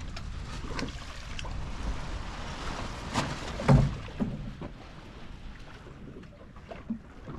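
Water washing along a sailboat's hull under sail, with wind buffeting the microphone. A few sharp knocks come through, the loudest about halfway through.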